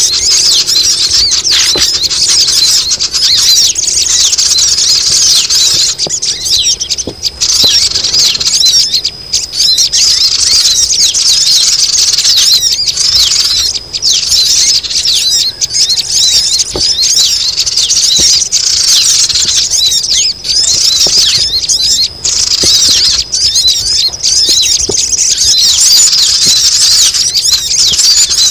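A loud, unbroken chorus of sogon birds: many short, high, squeaky chirps and twitters crowding over one another, as used in a bird-catching lure call.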